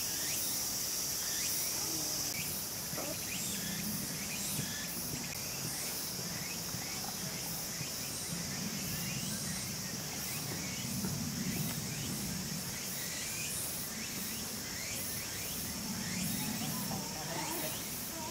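Steady high-pitched chirring of insects, with a low murmur that swells and fades beneath it.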